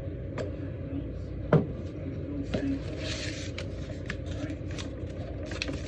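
Objects being handled on a table: light clicks and taps, one louder knock about a second and a half in, and a short scrape near the middle, over a steady low hum.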